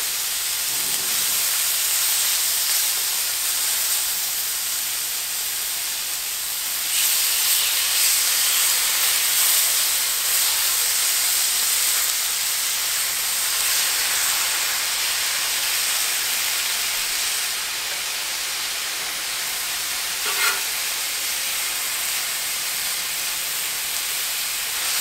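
Potatoes, onions and slices of deer heart sizzling steadily on a hot flat-top griddle as the meat is laid on. The sizzle gets louder about seven seconds in.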